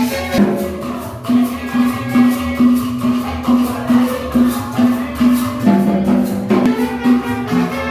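Upbeat Latin dance music with a steady beat, shakers and hand percussion over held instrument notes.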